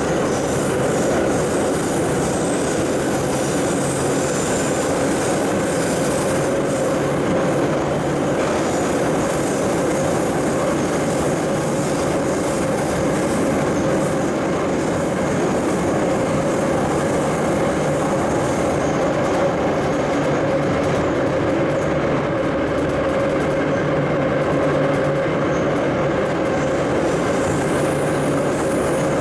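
Saint Petersburg metro train heard from inside the car while running through the tunnel: a steady rumble of wheels on rail and tunnel noise, with a constant whining tone over it.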